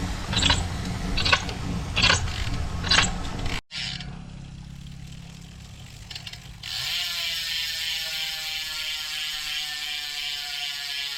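Sharp clicks about once every 0.8 seconds over loud low noise. After a cut, a bicycle's rear freehub buzzes with its pawls ratcheting as the wheel spins freely, the pitch slowly falling as the wheel slows.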